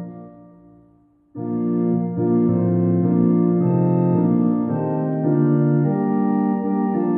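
Church organ playing sustained chords: a held chord dies away over about a second, then after a brief near-silence the organ comes in again with a fresh chord and carries on, the chords changing every second or so.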